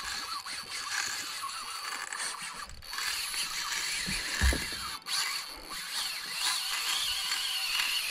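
Spinning fishing reel being wound in, with a steady mechanical whirr and clicking from its gears as line is retrieved. There is one dull knock about halfway.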